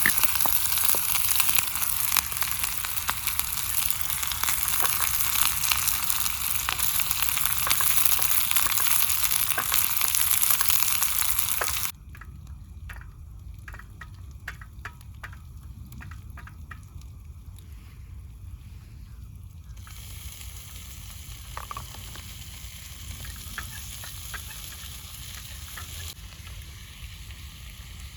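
Food frying in hot oil in a pan: a loud sizzle that starts suddenly and stops abruptly about twelve seconds in. A much quieter sizzle with small crackles follows.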